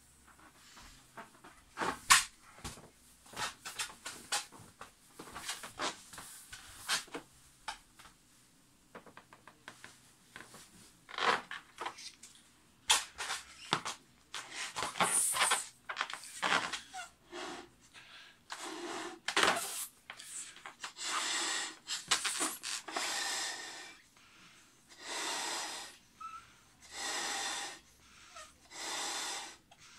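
Rubbing, squeaks and knocks as a big latex balloon is handled and sat on, followed by long breaths blown into the 36-inch balloon's neck, each about a second long and coming roughly every two seconds, as it is inflated toward bursting.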